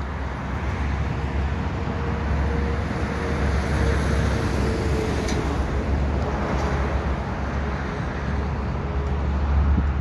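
Steady noise of multi-lane highway traffic, with a faint drawn-out hum from a passing vehicle through the middle.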